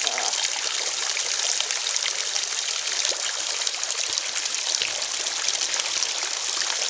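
Water of a small rock waterfall splashing and trickling steadily into a garden koi pond: an even, unbroken patter of fine splashes.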